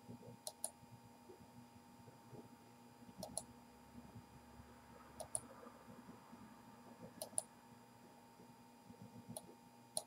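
Computer mouse button clicking, faint, about five times with a few seconds between. Each click is a quick pair of ticks from the button being pressed and released.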